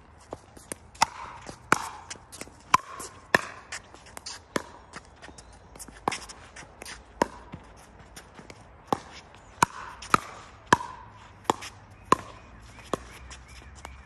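Pickleball rally: paddles striking the hard plastic ball in sharp pocks about once a second, with softer ticks of the ball bouncing and shoes on the hard court between them.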